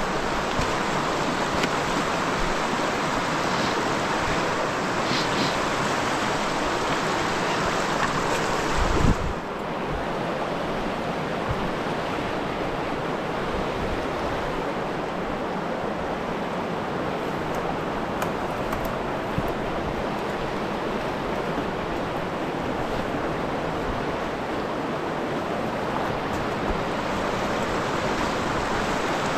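Steady rush of water from river rapids. A short low thump comes about nine seconds in, after which the rush sounds duller.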